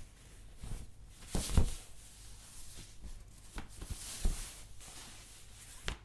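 Clothing being handled: fabric rustling and swishing in irregular bursts, with a louder flap or shake about one and a half seconds in and sharper brushes around four and six seconds.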